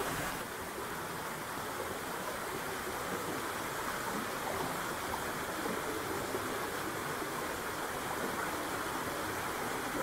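Rushing water of a forest mountain stream and waterfall: a steady, even rush.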